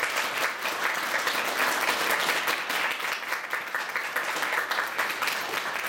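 Audience applauding: many hands clapping, dense and fairly even.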